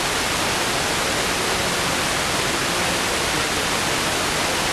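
Analog TV static: a steady, even hiss of noise from a cable channel that has no signal.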